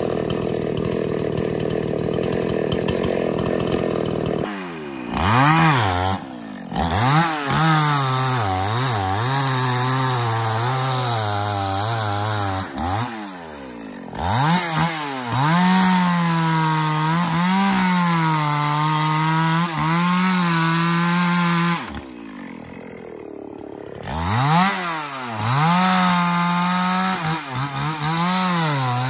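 Two-stroke chainsaw cutting wood. The engine holds a steady pitch at first, then is revved up and down in swoops with held stretches between, and falls back toward idle twice, about halfway through and again about three quarters in.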